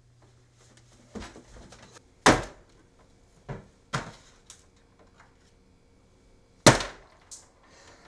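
Raw eggs being smashed by hand against a kitchen countertop: a handful of sharp knocks and cracks, the loudest about two seconds in and again near the end.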